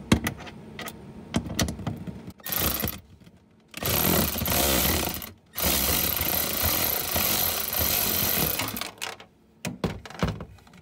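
Cordless power driver with a socket bit backing out screws from a plastic inner fender liner. A few light clicks come first, then the driver runs in three bursts, the last about three seconds long.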